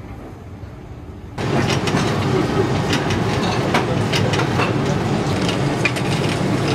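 Commercial electric meat slicer running and slicing rolled roast pork, starting suddenly about a second and a half in: a loud, steady motor hum with many sharp clicks and scrapes from the blade and carriage.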